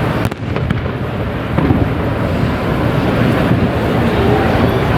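Wind buffeting the microphone: a steady rushing noise with a heavy low rumble, dipping briefly near the start.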